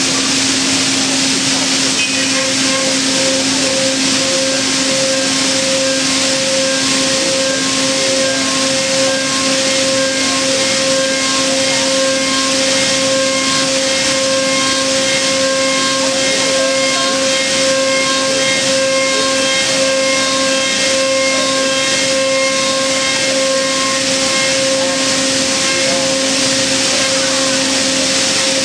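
C.R. Onsrud 96C18 CNC router spindle running as its bit routes the outside of a solid-surface ball smooth: a loud, steady whine over an even hiss. A few higher whine tones join about two seconds in and hold.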